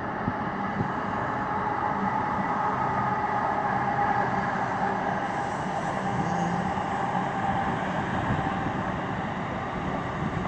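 Amtrak ACS-64 electric locomotive and its passenger cars rolling past slowly: a steady running noise from the train, with a faint held whine in the middle.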